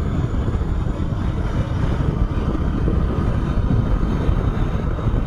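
Steady rush of wind and road noise from a moving motorcycle, buffeting the microphone.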